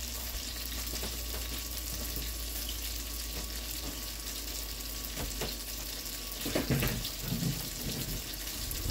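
Apples sautéing in a skillet, a steady sizzle. A low hum stops about five seconds in, and a few knocks and bumps follow near the end.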